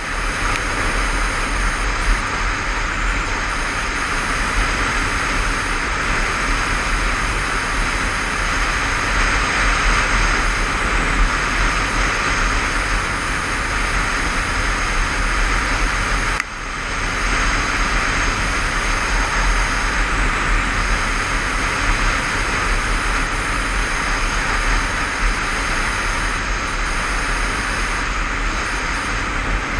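Motorcycle riding at steady speed, a continuous rush of wind over the helmet-mounted microphone mixed with engine and road noise. The noise drops suddenly for a moment about halfway through, then carries on.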